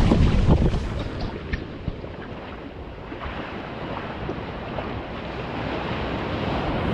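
Sea waves washing in a steady surf noise that swells slowly louder. Wind buffets the microphone at first and dies away after about a second.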